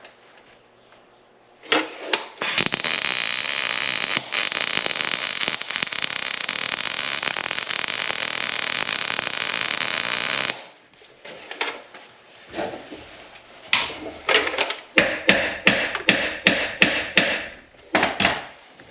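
Welding arc crackling steadily for about eight seconds on a broken-off stud in the stator frame, cutting off abruptly, followed by a run of sharp metal taps, about three a second.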